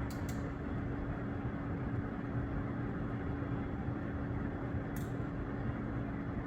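Steady mechanical hum with a constant low tone, with a couple of light clicks at the start and one more about five seconds in.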